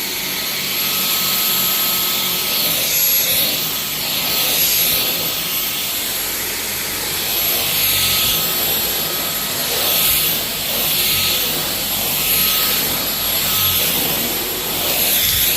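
Dyson cordless stick vacuum running with a steady high whine, its suction noise swelling and fading about every one and a half to two seconds as the floor head is pushed back and forth over a rug.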